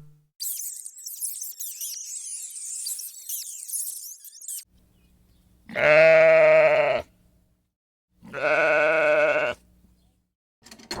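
High, thin chirping for the first few seconds, then two long bleats from livestock, each lasting over a second.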